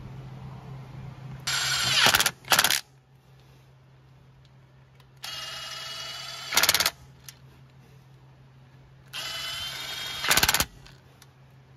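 Cordless drill-driver on a long extension running the stator cover bolts of a Polaris Ranger 570 down, three times: each run is a motor whine about a second long that ends in a quick cluster of loud clicks as the bolt seats.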